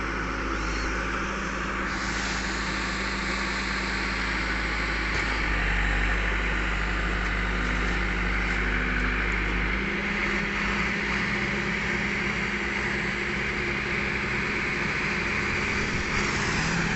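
Heavy diesel engine running steadily, its note shifting about five seconds in and again about ten seconds in, where the deep rumble drops away.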